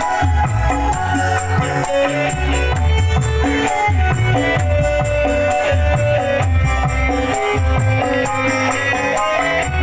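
Music with a heavy, pulsing bass beat and shaker-like percussion, played loud through a sound system during a sound check.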